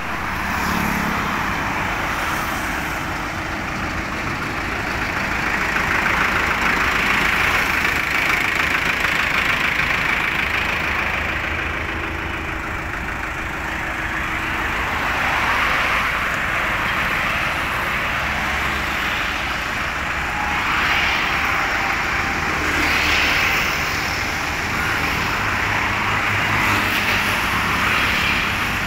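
Tractor diesel engine running continuously, its level swelling and easing a little without stopping.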